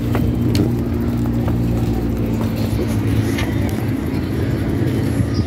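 Car engine running steadily at idle, an even low hum, with a few light clicks over it.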